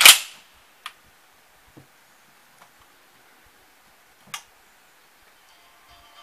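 A single shot from an H&K G3 A4 rifle in .308 Winchester: one sharp, loud report right at the start that dies away within about half a second. A few faint clicks and knocks follow.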